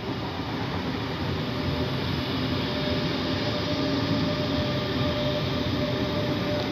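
Deutsche Bahn Class 425-type electric multiple unit pulling into the platform and braking to a stop, with running noise from its wheels on the rails. A thin steady whine from the train's drive sits over the noise in the second half.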